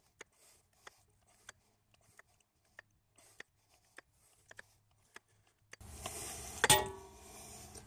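Hydraulic hand pump being worked, a faint click about every two thirds of a second, as a hydraulic puller presses the old front wheel bearing out of the steering knuckle. Near the end comes a loud, sharp metallic crack with brief ringing: the bearing breaking free.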